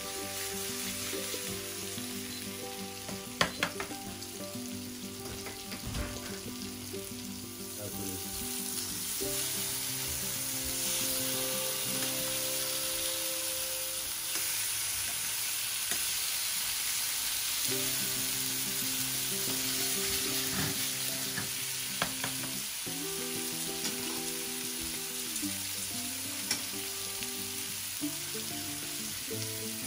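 Salmon fillets frying in hot oil in a nonstick pan, a steady sizzle, with a few sharp clicks, the loudest about three and a half seconds in.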